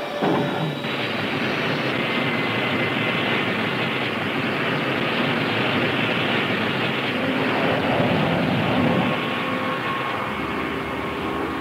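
Rocket motors of a test sled on a high-speed rocket sled track, a loud, dense rushing noise whose pitch sweeps downward in the first second as the sled passes. It runs on steadily and eases off a little near the end.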